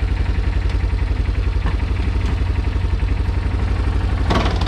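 Yamaha Big Bear 250 ATV's single-cylinder four-stroke engine idling with an even, rapid low pulse. A short, louder burst of noise near the end.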